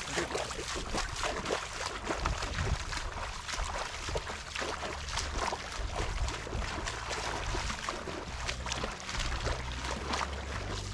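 Footsteps wading through shallow, muddy paddy water: a run of irregular splashing and sloshing strides, with a steady low rumble underneath.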